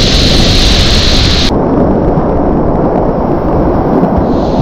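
Whitewater rapids rushing close to a kayak-mounted camera, with heavy rumble on the microphone. The upper hiss cuts off abruptly about a second and a half in.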